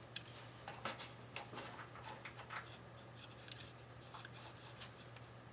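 Faint, scattered small metallic clicks and scrapes of hand tools working on a distributor's breaker points: feeler gauge and screwdriver setting the point gap. A low steady hum runs underneath.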